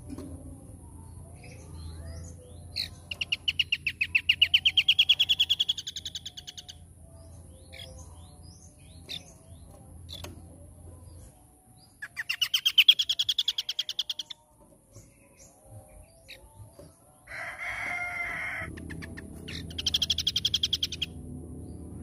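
Scaly-crowned babbler (asi topi sisik) singing: three fast trills of rapidly repeated high notes, each rising and then holding, the longest lasting about four seconds, with a short harsh rasp between the second and third.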